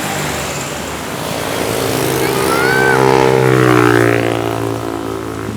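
A bus's engine drones as it passes close by: the sound swells to its loudest about three and a half to four seconds in, then drops in pitch and fades as it goes by.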